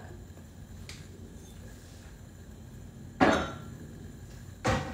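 Two sharp clatters of kitchen things being handled, about a second and a half apart, the first one louder, each with a short ring after it.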